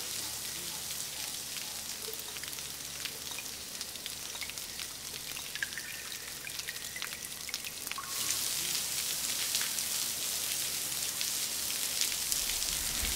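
Waterfall spray falling as a shower of drops, pattering on rocks and leaves: a steady hiss of many small drop ticks that grows louder a little past halfway.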